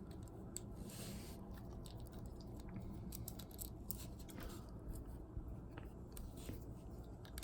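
Faint scattered clicks and light rattling of a small plastic Bakugan toy being handled, over a steady low hum.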